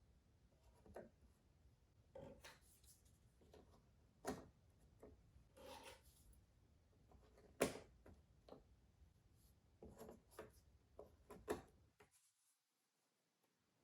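Jigsaw puzzle pieces being handled and fitted: soft scattered taps, clicks and rubbing, with one sharper tap just past halfway and a brief pause near the end.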